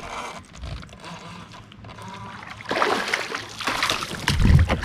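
Hooked bass splashing and thrashing at the water's surface beside a kayak, starting a little over halfway through, with a heavier low thump near the end.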